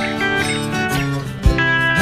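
Background music: acoustic guitar instrumental with plucked and strummed notes and a low beat.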